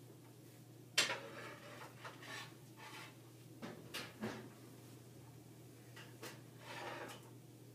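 Kitchen clatter as a metal pot is handled and set into the oven: a sharp clank about a second in, a few knocks around the middle, and a rattle near the end.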